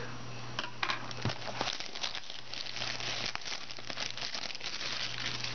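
Clear cellophane shrink wrap crinkling and crackling as it is torn and pulled off a trading-card box.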